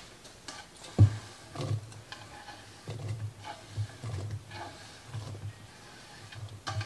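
Chopped rhubarb being pushed by hand off a wooden cutting board into a stainless-steel mixing bowl of cake batter: irregular soft knocks, rustles and scrapes, with one sharper knock about a second in.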